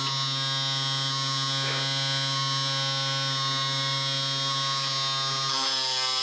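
Small brushed DC motor of a homemade mini drill press running with a steady whine while its bit drills into a copper-clad fiberglass circuit board. The tone shifts briefly near the end.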